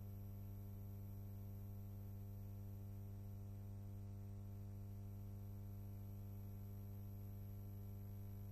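A steady low electrical hum with a faint hiss, unchanging throughout, and no other sound.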